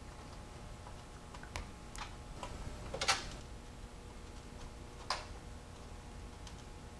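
Steel needle-bearing rollers clicking lightly as they are pressed one by one into the greased bore of a Powerglide planetary pinion gear: a few sparse clicks, the loudest about three seconds in.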